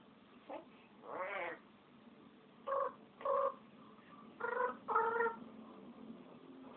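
African grey parrot giving meow-like calls. There are six short pitched calls: the second is longer and wavering, and the last four come in two pairs.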